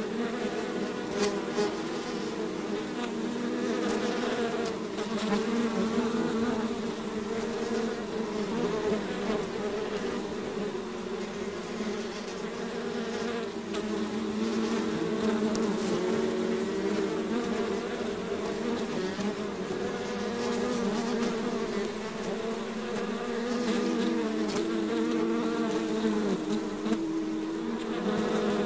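A swarm of honeybees buzzing: a dense, continuous hum of many overlapping wingbeats that swells and eases a little in loudness.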